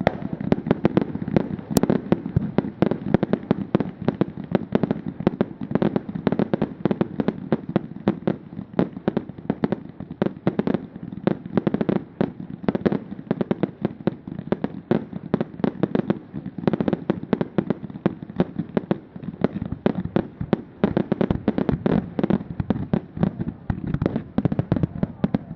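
Fireworks going off in a dense, continuous barrage: rapid, irregular bangs and crackles, several a second, without a break.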